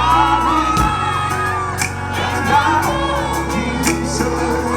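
A singer with a live band holds long, wavering vocal notes over a steady bass line and drums, with some crowd voices in the hall.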